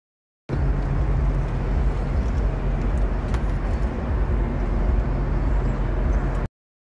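Steady low rumble of outdoor city-street noise picked up by a phone microphone in a crowd, with no clear voices; it starts abruptly and cuts off suddenly.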